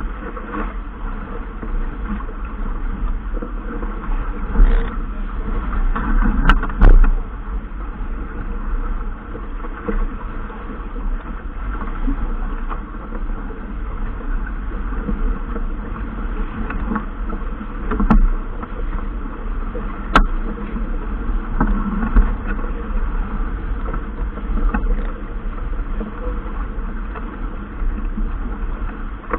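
Steady rumble and buzzing noise of a boat under way on the water, with a few sharp knocks, the loudest a cluster about five to seven seconds in.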